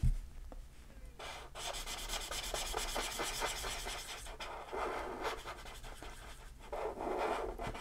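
Marker tip scratching on paper in rapid back-and-forth strokes as a shape is coloured in, in a few stretches with brief pauses. A light knock comes right at the start.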